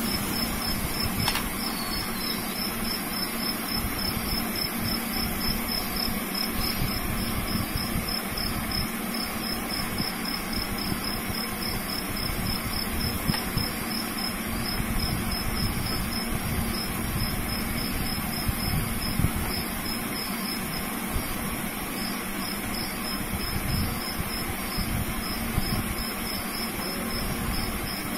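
Insect calling in a steady train of rapid, high-pitched pulses at one pitch, over a constant hiss and a low hum.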